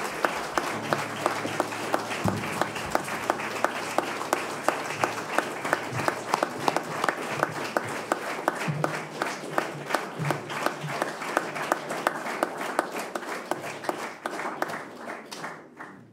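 Audience applauding, a dense patter of many hands with some sharper claps standing out; the applause thins and dies away near the end.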